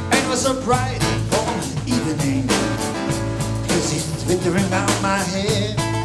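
Live band music: acoustic guitar strummed in a steady rhythm over bass and drums, with a wavering lead melody line bending over the top.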